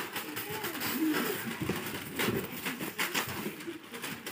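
Two puppies play-fighting, giving small growls and grumbles, with scattered clicks of paws and claws scuffling on a concrete floor.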